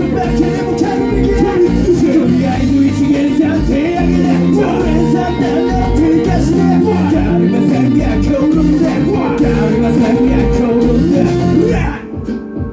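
Live band music with a vocal line over a steady beat, dropping away sharply near the end.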